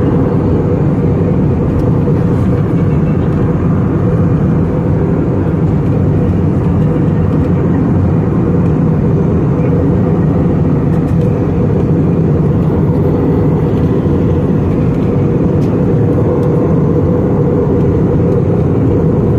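Steady in-flight cabin noise of an Airbus A320-family jet airliner: engine and airflow rumble heard from inside the cabin by the window, unchanging in level.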